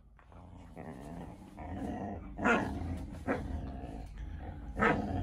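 Two huskies growling at each other while tugging on a plush toy. The growling starts faint and builds, with a few louder, sharper outbursts about two and a half, three and a half and five seconds in.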